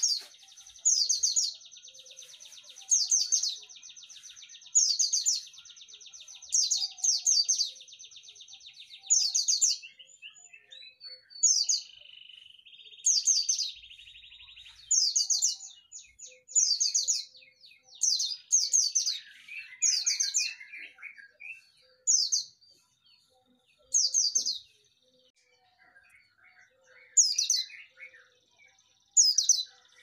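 Caged white-eye (pleci) calling: short, loud notes that fall in pitch, repeated about every second or two. A steady high trill runs under them for the first third, and fainter twittering comes in after the middle.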